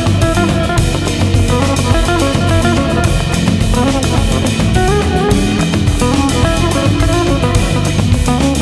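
Background music: an instrumental passage of a rock/rap track with drum kit, electric guitar and bass, steady beat.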